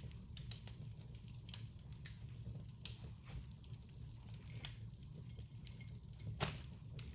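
Small fire crackling faintly with irregular pops, one sharper pop about six and a half seconds in, over a low steady hum.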